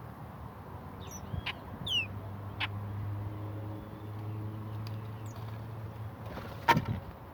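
Wild garden birds calling with a few short, downward-sliding whistled notes about a second and two seconds in, among sharp clicks, the loudest about seven seconds in. A low steady hum sits under the middle of it.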